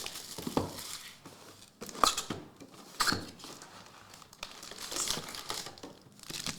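Plastic wrapping on a trading-card box and packs being torn and crinkled open by hand, in irregular rustles with a few sharper rips.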